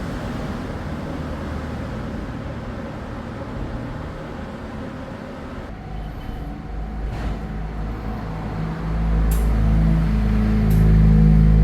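Steady mechanical noise, then a few clicks, and about nine seconds in a machine starts with a loud, steady low hum: the vacuum pump of an A/C service unit starting to evacuate the car's air-conditioning system before it is recharged with refrigerant.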